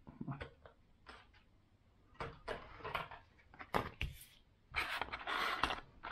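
Soft plastic sand-eel lures being pulled out of their plastic packaging: scattered small clicks and rustles, with a longer rustle near the end.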